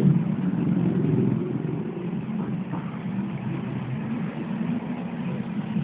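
Motorcycle engine idling steadily, its revs rising and falling briefly about a second in.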